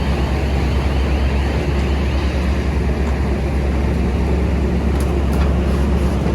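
Excavator's diesel engine running steadily with a strong low drone.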